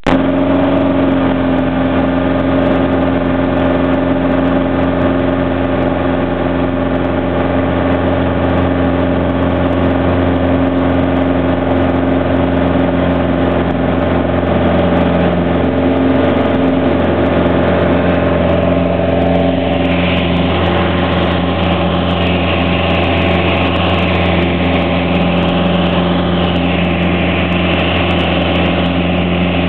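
Single-engine light aircraft's piston engine and propeller at takeoff power, a steady loud drone heard inside the cockpit through the takeoff roll and climb-out.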